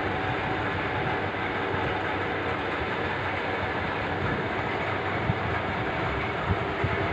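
Steady rushing mechanical noise with a low hum, even in level, with a couple of faint ticks near the end.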